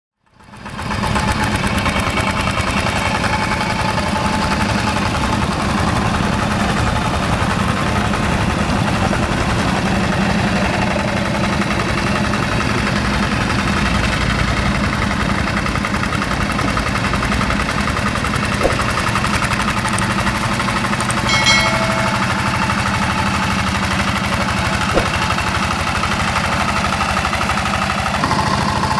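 Yanmar TF85 single-cylinder horizontal diesel engine of a two-wheel hand tractor running steadily as the tractor works through paddy mud, fading in over the first second. A short ringing metallic clink about three-quarters of the way through.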